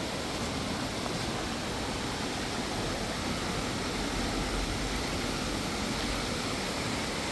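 Rain-swollen mountain creek rushing fast over rocks: a steady, unbroken rush of water, rougher and louder than usual from the heavy rain.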